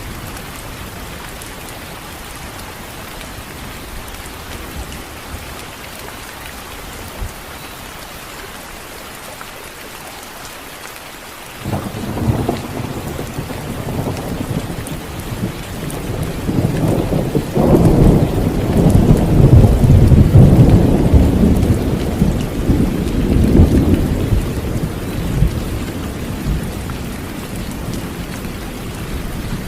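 Steady rain falling, with a thunderclap cracking in about twelve seconds in and building into a long, loud rolling rumble that peaks a few seconds later and slowly dies away under the rain.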